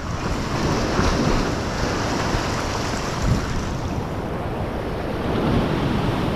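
Ocean swell surging and washing up over a rocky shore ledge, with wind buffeting the microphone.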